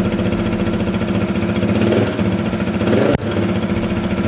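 Husqvarna 701's single-cylinder engine idling steadily through an Arrow aftermarket exhaust, with a short dip in level about three seconds in.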